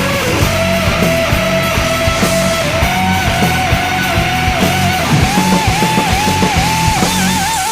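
Rock music with a steady drum beat and a long held lead note that climbs in steps and wavers near the end, stopping abruptly at the close.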